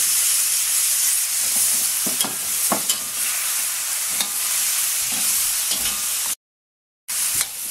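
Vegetables sizzling in a hot wok as liquid is poured in to help them steam, with a utensil scraping and knocking against the wok as they are stirred. The sound drops out for a moment near the end.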